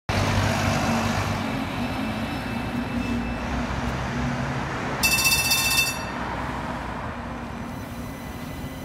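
Street traffic noise as a double-decker bus passes close by, its diesel engine strongest in the first second or so. About five seconds in a high electronic warning tone sounds for about a second.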